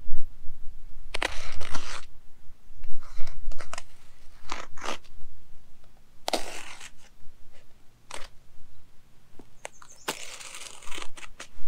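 A garden weed mat being slit and torn open in a series of short rasping strokes, about six, spaced a second or two apart, as an X-shaped planting hole is cut in it. A low rumble runs underneath.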